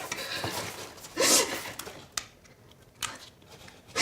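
A person's sharp, breathy gasp about a second in, followed by faint small clicks and another short breath near the end.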